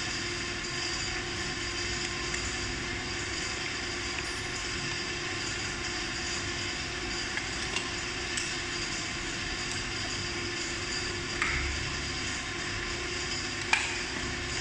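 Steady background machine hum with a constant low tone, and a few faint sharp clicks and taps from small screws and a plastic fork cover being handled, the loudest two near the end.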